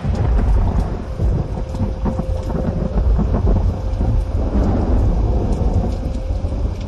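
Loud outdoor rumble with a rushing hiss over it, from wind buffeting the microphone beside floodwater.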